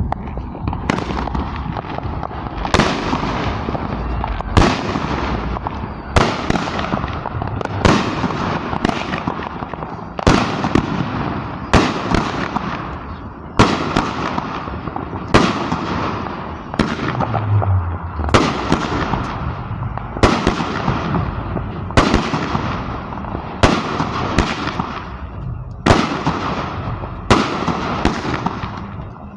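Crown Jellyfish consumer fireworks cake firing a long volley: a sharp bang roughly every second and a half, each trailing off, over a continuous noisy rush.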